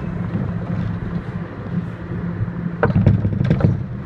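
Subway train running, heard from inside the front car: a steady low hum of motors and wheels on the rails, with a quick run of clacks from the wheels over the track about three seconds in.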